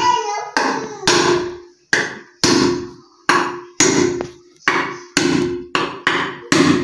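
Claw hammer driving a 3-inch nail into a wooden stand leg: about a dozen sharp blows, roughly two a second, coming a little faster near the end, each with a short ring.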